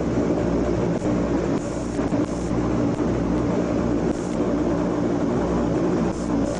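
An engine running steadily, a low drone with a constant pitch.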